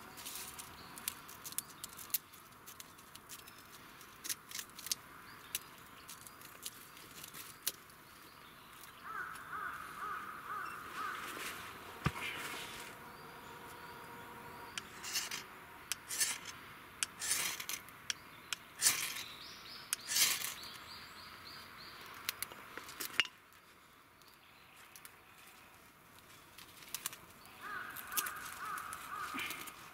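Knife blade scraping birch bark in a series of short, sharp strokes to make tinder, with a bird calling twice in the background.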